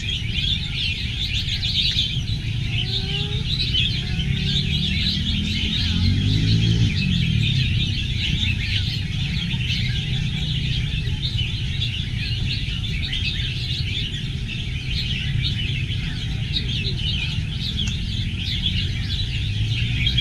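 Many caged red-whiskered bulbuls singing at once, a dense, continuous chorus of short chirps and whistles, over a steady low background noise.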